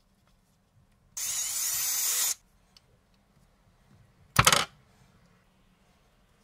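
Power drill running in one burst of about a second, then a second short burst, boring into the white plastic of the soap-bottle fitting.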